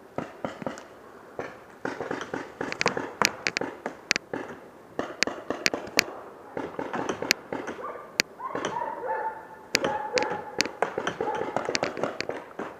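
Paintball markers firing: a string of sharp pops, with about a dozen loud, crisp shots spaced half a second to a second apart among many softer pops.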